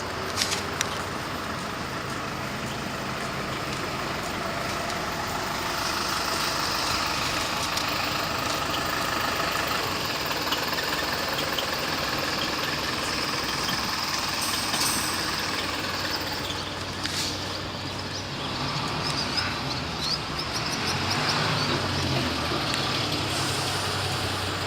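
Road traffic: motor vehicles running and passing, a steady mix of engine and tyre noise that swells somewhat in the middle.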